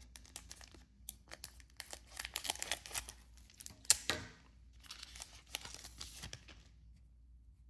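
A foil trading-card booster pack being torn open and its wrapper crinkled: a run of crackles and sharp ticks, with one louder snap about four seconds in, then quiet near the end.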